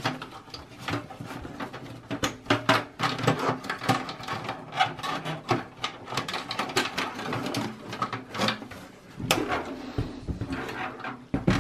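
Irregular clicking, rattling and knocking as hands work a cable connector loose inside a steel desktop computer case and then shift the case, with a sharper knock about nine seconds in.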